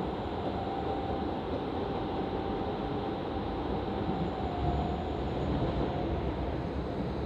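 Passenger train running between stations, heard from inside the car: a steady rumble of wheels on track, swelling slightly about two-thirds of the way through, with a faint thin whine above it.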